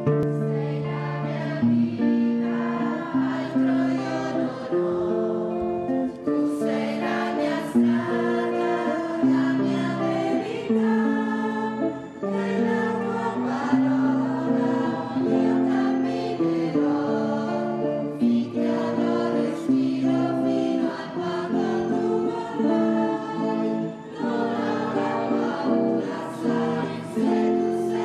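Church choir singing a hymn with guitar accompaniment.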